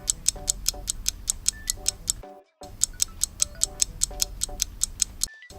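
Countdown-timer sound effect: fast, even clock ticking over a short looping music jingle. It cuts out briefly twice as the loop restarts.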